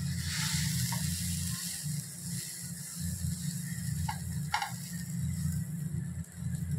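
Butter and bhaji sizzling on a hot tawa as pav buns are pressed down to toast, over a steady low hum. A couple of light taps come about four seconds in.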